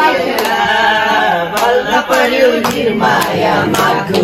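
A group of voices singing a song together, with hand claps keeping a steady beat about twice a second.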